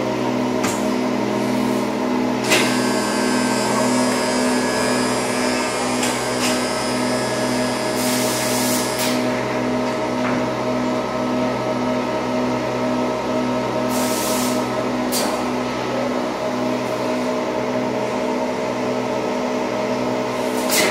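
Thermoforming machine running: a steady machine hum with a slow pulse in its low note, broken by two short hisses of air and a few clicks.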